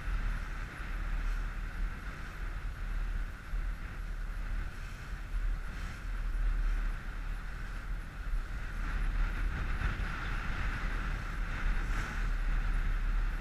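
Wind buffeting the microphone on an inflatable coach boat under way, over a steady drone that is likely its outboard motor and the wash of water along the hull. The sound holds steady throughout, slightly louder in the second half.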